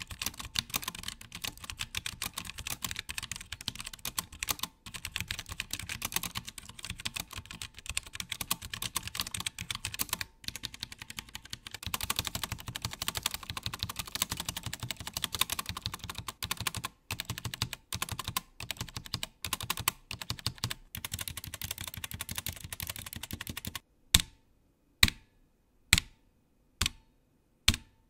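Typing on a Morgrie RKB68 low-profile mechanical keyboard with Kailh Choc V1 brown tactile switches and PBT keycaps: a fast run of continuous key clacks. Near the end it changes to single key presses, about one a second.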